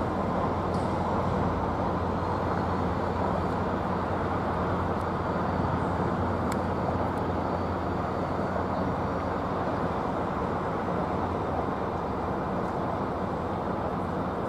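Diesel-hauled commuter train pulling away at low speed, a steady low rumble of engine and rolling wheels, with a couple of faint clicks midway.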